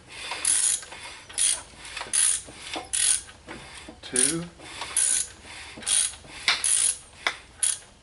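Ratchet wrench clicking in repeated short strokes, about one a second, as a 2007 Mini Cooper S engine's crankshaft is turned over by hand through full revolutions to check the cam timing after a timing chain replacement.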